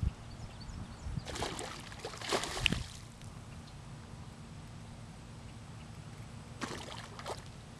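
A hooked bowfin, still fighting hard, thrashing at the water's surface right at the bank. It throws a few bursts of splashing: two close together in the first three seconds and another near the end.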